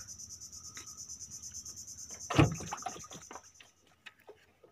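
Insects chirring in a steady, high-pitched chorus with a fast pulse, several pulses a second. A single short thump comes about two and a half seconds in. The chorus cuts off abruptly near the end.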